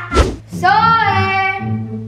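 A short thump, then a child's high voice holding one note for about a second, rising at the start, over background music.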